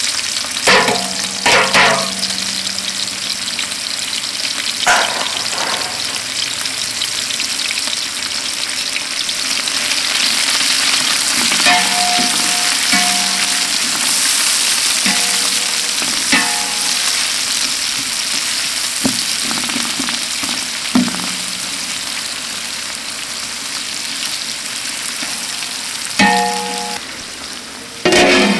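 Sliced onions frying in hot oil in a large metal pot: a steady, loud sizzle. A metal ladle scrapes and knocks against the pot every few seconds as the onions are stirred. Near the end a metal lid clanks onto the pot.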